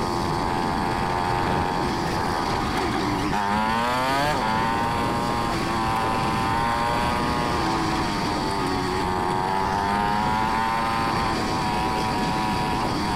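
2023 Yamaha XT250's single-cylinder four-stroke engine running at a steady cruise. About three and a half seconds in, the revs dip and then climb quickly before settling again.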